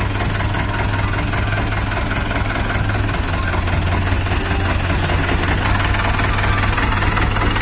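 Diesel dump truck engine idling steadily, with an even, rapid low pulse.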